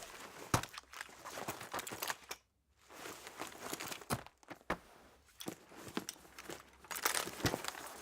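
Foley footsteps and crunching, crinkling rustles performed in a studio for an outdoor scene: irregular steps and handled material, with a brief pause about two and a half seconds in.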